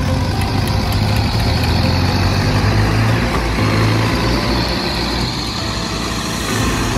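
Farmtrac tractors' diesel engines running hard under heavy load, pulling against each other on a chain in a tug of war. The deep engine drone is strongest in the first half and eases slightly after about five seconds.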